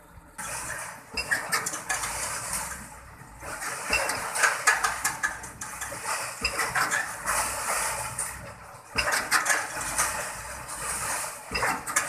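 Irregular metallic clattering and clinking that starts suddenly under half a second in and comes in loud pulses with short lulls, over a faint steady hum.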